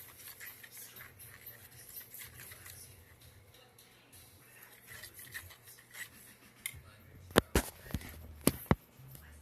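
Stirring a mixture in a bowl with a utensil: soft, irregular scraping and ticking, then about five sharp knocks of the utensil against the bowl near the end.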